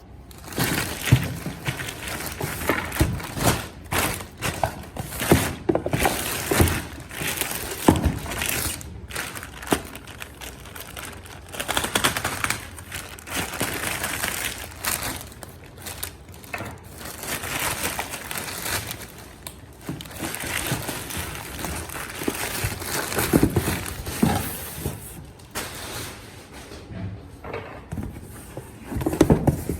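Packaging of a 360-degree camera being handled and opened: irregular knocks, taps and clicks against the box, with crinkling and rustling of the wrapping.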